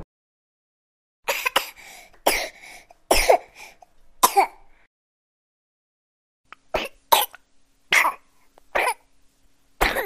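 A baby coughing in short separate coughs: a run of five, a pause of about two seconds, then another series of single coughs about one a second.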